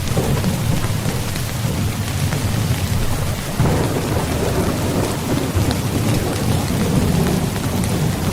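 Steady heavy rain with a low rumble of thunder; about a third of the way in a louder roll of thunder swells up suddenly and rumbles on.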